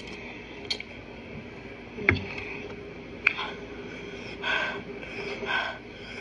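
A person blowing out two hard breaths through pursed lips, the huffing of a mouth burning from very spicy noodles. Before them, a thump about two seconds in and a sharp click a second later.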